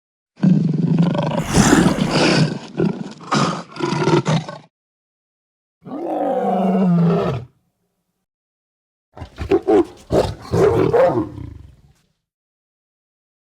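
Lion roars: three separate roaring clips, each cut off into dead silence. First a long roar of several pulses lasting about four seconds, then a short single roar, then a quick run of short roars leading into a longer one.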